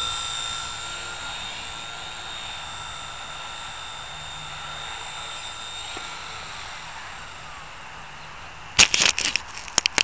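Blade mCP X micro RC helicopter's rotor and motor running with a steady high whine, fading away after it settles on the landing mat and spools down. Near the end, a quick run of loud knocks and handling noise.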